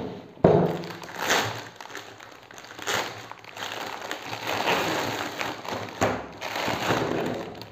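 Clear plastic packaging bag crinkling and rustling as the coiled hose of an aquarium siphon pump is pulled out of it, with several sharper crackles.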